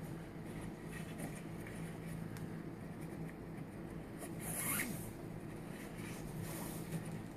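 Nylon paracord sliding and rubbing against itself as it is crossed and pulled through a knot, with a short zip-like swish about two-thirds of the way through and another near the end, over a faint steady hum.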